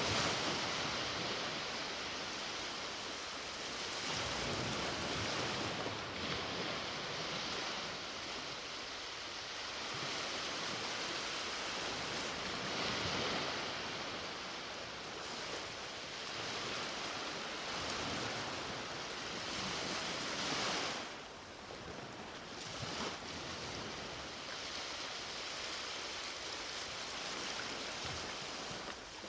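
Ocean waves breaking and washing up a beach: a continuous surf hiss that swells and eases every few seconds, dipping briefly about two-thirds of the way through.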